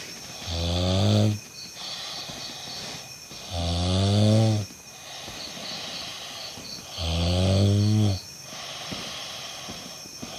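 A person snoring: three loud snores, each about a second long and about three and a half seconds apart, with softer breathing noise between them.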